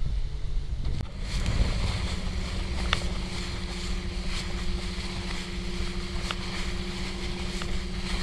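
Boat motor running steadily under way, with wind on the microphone and water rushing past. The engine note changes abruptly about a second in, then holds steady.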